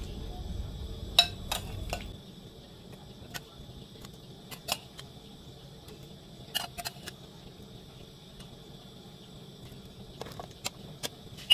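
Metal ladle stirring pineapple chunks in a metal pot of simmering curry, clinking sharply against the pot now and then, a dozen or so irregular clinks.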